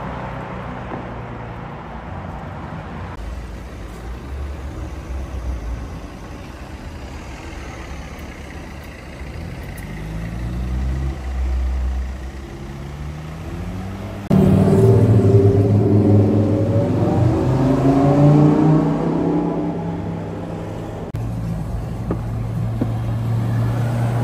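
Car engines in the street: one pulls away with a rising note around ten seconds in. About fourteen seconds in, a much louder engine suddenly takes over, climbing in pitch as it revs and accelerates, then settles to a steady low drone near the end.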